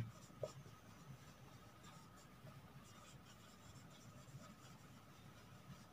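Faint strokes of a marker pen writing on a whiteboard.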